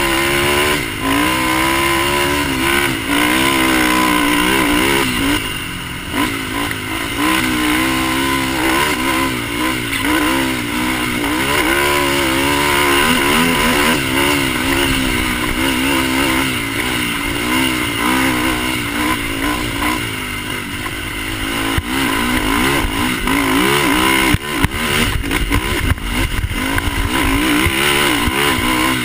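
Polaris Outlaw race quad's single-cylinder four-stroke engine under hard throttle, its pitch climbing and dropping again and again as the rider accelerates, shifts and backs off over the rough track. Several sharp knocks and clatter come late on as the quad hits bumps.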